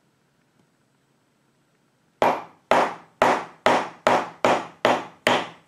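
Hammer blows driving a peg into the wooden handle of a lawnmower-blade knife: sharp, evenly spaced strikes, about two a second, starting about two seconds in.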